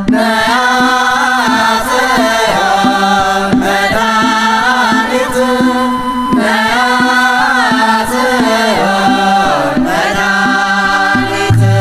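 Ethiopian Orthodox hymn in the Yaredic chant style: voices chanting a slow, gliding melody over a steady low held tone.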